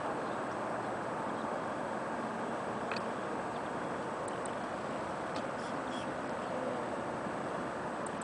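Steady outdoor background roar with no distinct pitch, with a single faint click about three seconds in.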